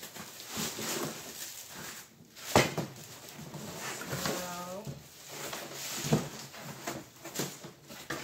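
Cardboard box being handled: flaps pulled open and the cardboard packing insert pulled out, with rustling and short knocks, one sharp thump about two and a half seconds in, and a brief squeak near the middle.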